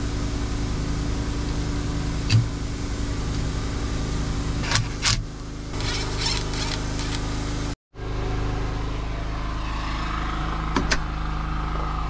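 Sawmill engine running with a steady drone, with a few sharp clicks and knocks from doorknob hardware being fitted into a door.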